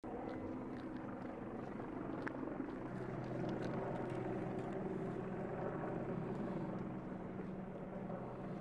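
A steady, low mechanical drone of a running engine, with a few faint clicks over it.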